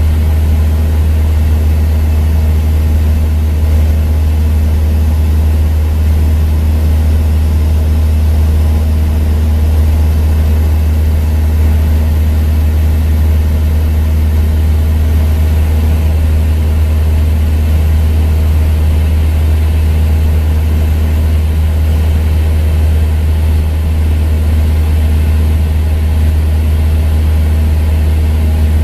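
Cessna 172's piston engine and propeller droning steadily in flight, a deep, even hum with a constant rush of noise over it.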